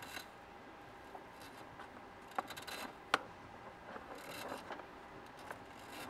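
Faint rustling and scraping, with a few sharp clicks, the loudest two about two and a half and three seconds in: a hand feeling around the footwell under the brake pedal and handling a wire pushed through the firewall.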